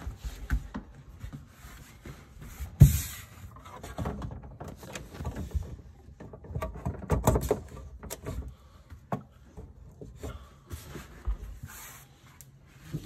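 Handling noise from reaching into the cabinet under the cooktop to plug its power back in: scattered knocks, clicks and rustles. The loudest is a sharp knock with a brief hiss about three seconds in.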